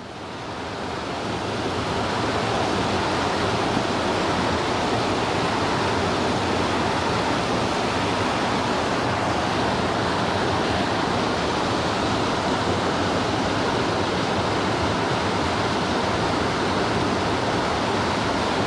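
Small waterfalls on a rocky mountain creek rushing steadily over boulders, fading in over the first couple of seconds.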